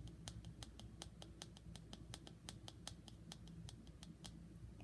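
ASMR tapping by hand: a quick, even run of light, sharp taps, about six a second, that stops shortly before the end.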